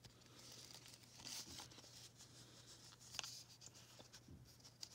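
Faint rustling and scraping of a small knit doll's tank top being slid up a plastic fashion doll's body, with a few light handling clicks, loudest a little after a second in and again around three seconds in. A low steady hum runs underneath.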